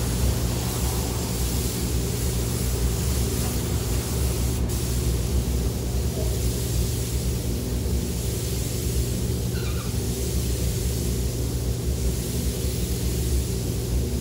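Compressed-air spray gun hissing steadily as it sprays glass coating onto a car's paintwork, over a steady low hum.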